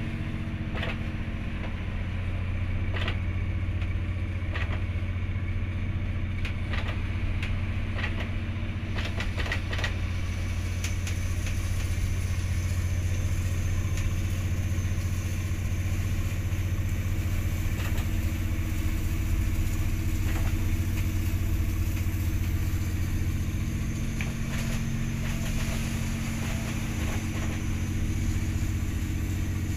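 Steady low drone of a ship's engine heard inside the wheelhouse, with a scatter of faint clicks and knocks in the first third.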